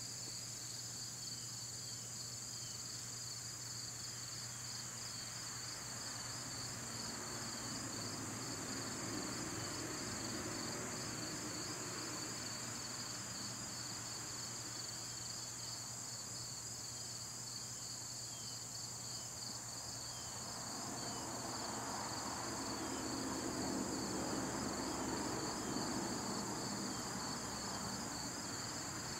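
Steady chorus of insects trilling outdoors, one high-pitched trill and a second, lower one pulsing rapidly. A low rumble swells up twice behind it, about a quarter of the way in and again near the end.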